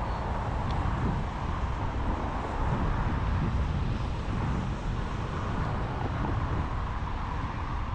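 Outdoor city ambience: a steady low rumble of distant traffic, with wind buffeting the microphone of an action camera.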